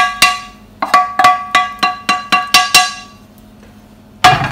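A frying pan being rapped with a utensil to knock the last fried mushrooms out onto a plate: about three sharp, ringing metallic knocks a second, stopping about three seconds in. A heavier clunk of the pan comes near the end.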